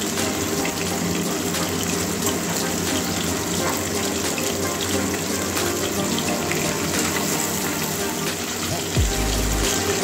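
Catla fish steaks sizzling steadily as they shallow-fry in hot oil in a kadai. Near the end a few low knocks come as a spatula moves the pieces in the pan.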